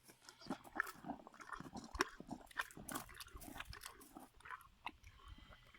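A donkey biting into and chewing watermelon, with irregular wet crunches.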